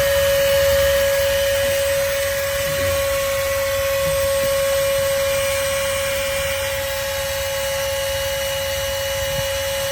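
VEVOR 5-ton electric hydraulic car jack's motor and pump running at a steady whine, raising a truck.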